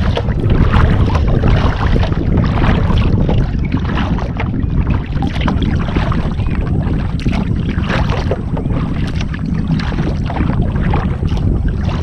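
A sea kayak being paddled: water splashing and lapping at the hull about once a second, over a steady low rumble of wind on the microphone.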